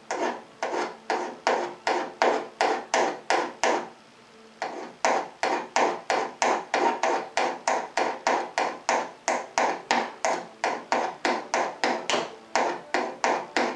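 A steel screwdriver shank drawn in quick, even strokes along the edge of a paint-scraper blade clamped in a vise, burnishing the edge over into a cutting burr. The strokes go at about three a second, metal scraping on metal with a slight ring, with a short pause about four seconds in.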